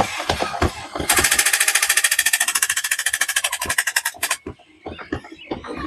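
Machine-gun fire sound effect: a fast, even burst of about a dozen shots a second lasting roughly three seconds, with scattered single shots before and after.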